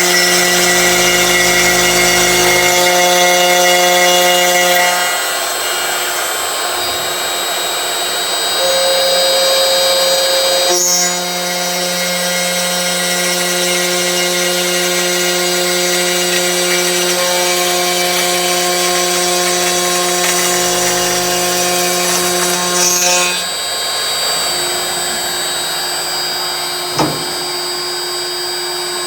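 Aluminium profile CNC drilling and milling machine running: steady whining tones from the spindle and drives over a machining noise, the note changing several times as it moves between operations. A single sharp click near the end.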